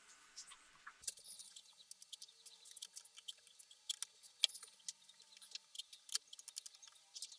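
Faint, irregular clicks and scratches of thin aluminium wire being pushed through and twisted against the rubber wall of a car tire.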